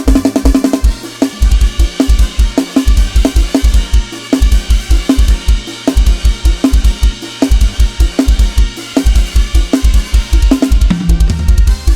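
Sampled virtual drum kit (Addictive Drums 2) playing a fast, driving Lam Sing procession groove: rapid bass-drum hits with snare, hi-hat and cymbals, over a low bass line.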